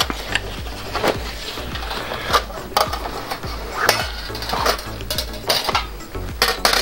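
Flat stainless steel stove panels clinking and scraping as they are slid into a fabric carry bag, with the bag's cloth rustling between the irregular metallic knocks.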